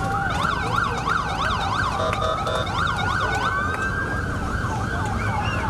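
Emergency sirens, at least two overlapping. One runs in a fast yelp, sweeping up and down about three times a second. Another rises and falls more slowly in a wail. Under them is a steady low rumble.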